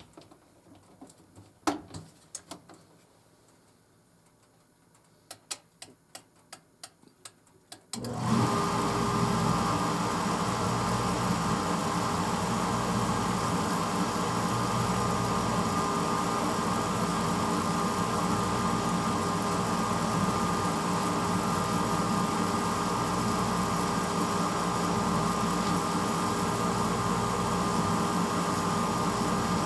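1986 Hotpoint Potwasher dishwasher being started: a few clicks, then a quick run of about eight even clicks as the cycle controls are set. About eight seconds in, its motor starts suddenly and runs with a steady hum.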